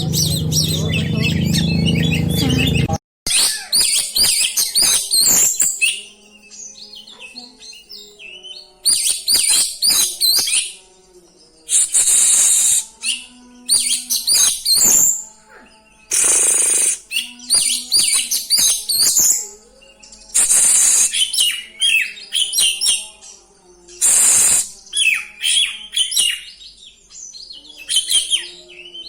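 Oriental magpie-robin (kacer) singing a loud, varied rolling song in bursts of a second or two with short pauses, mixing quick high whistled phrases, mimicked notes of other birds, and several harsh rasping notes.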